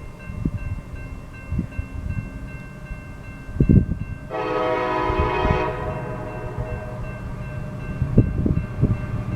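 Air horn of the lead EMD SD70MAC locomotive sounding one chord blast of about a second and a half, cut off sharply, over an uneven low rumble.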